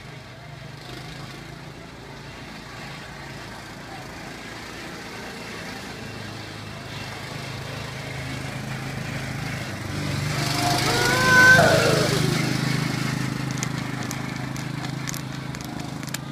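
Steady motor hum of a children's ride-on car, growing louder as it drives close past and then easing off. About eleven seconds in, at the loudest point, a brief wavering high-pitched sound rises over it.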